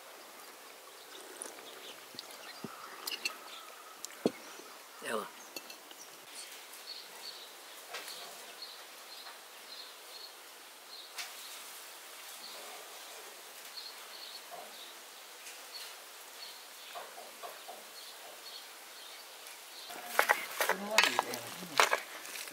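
Quiet outdoor background with scattered light clinks and a faint high chirp repeating about twice a second. About 20 seconds in, a wooden spoon starts stirring and scraping minced beef in a stainless steel pot, the loudest sound.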